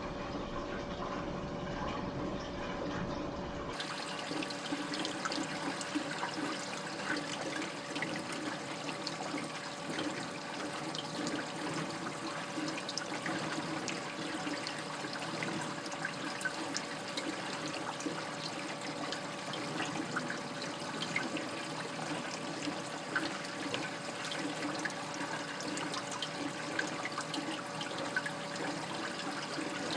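Water trickling and splashing in an aquarium sump, a continuous wash of small drips and splashes with a steady hum underneath. About four seconds in the sound changes abruptly, its low rumble dropping away.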